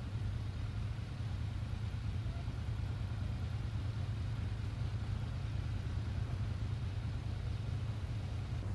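Steady low engine rumble with an even background hiss, unchanging throughout.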